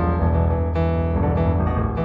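Improvised solo piano music: chords struck three times, with low bass notes held beneath.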